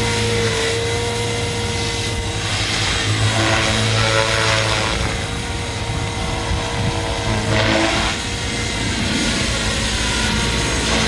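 Radio-controlled model helicopter in flight: a steady whine from the motor and rotor blades, shifting in pitch a few times as it manoeuvres.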